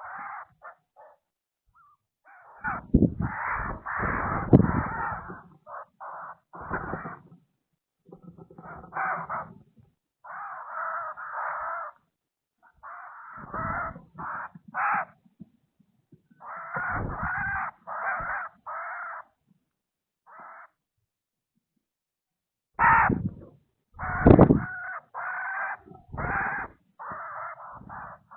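Birds giving harsh, repeated calls in short runs with pauses between, some with low thumps underneath.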